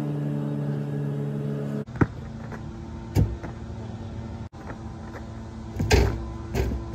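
A steady low hum for about the first two seconds. Then a basketball bounces hard on the outdoor court, bounces again about a second later, and near the end hits the rim and backboard with a loud bang on a dribble dunk attempt, followed by one more bang.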